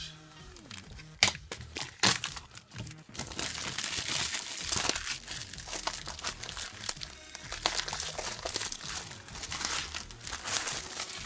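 Cellophane shrink-wrap crinkling and tearing as it is peeled off a hardcover book by hand. There are a few sharp crackles in the first two seconds, then dense, continuous crinkling.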